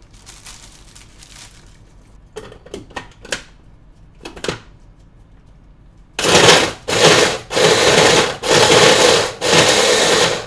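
Small food processor pulsed five times in quick succession from about six seconds in, its motor running about a second each time as it chops garlic, onion, parmesan, fennel seeds and fresh herbs into a paste. Before that, a few light knocks and rustles of the bowl and lid being handled.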